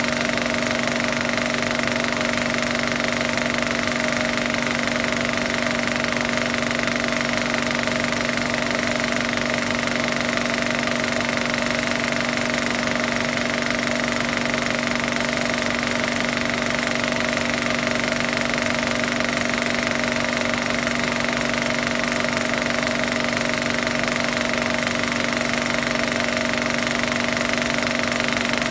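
Steady, unchanging rough mechanical drone with a constant low hum and a higher whine held over it.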